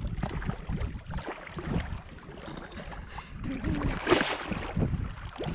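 A hooked pike thrashing and splashing at the water's surface close to shore as it is played in. The loudest splash comes about four seconds in, over a steady low rumble.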